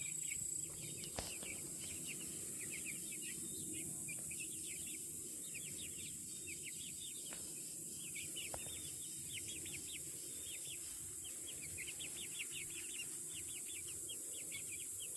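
Young chicks peeping: many short, high, falling peeps overlapping continuously, over a steady low background hiss.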